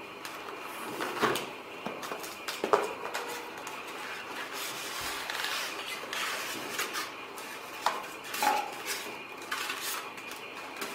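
Hard parts being handled and set down: a handful of sharp clinks and knocks spread through, over a steady hiss with a faint high tone.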